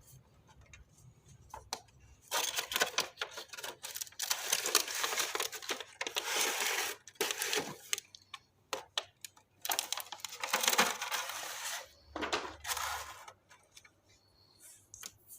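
Packaging being handled during an unboxing: irregular bursts of rustling and clicking, with brief pauses between them.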